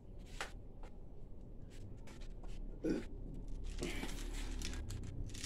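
Light clicks and rattles of a toy pellet gun and loose metal pellets being handled, with a louder knock about three seconds in.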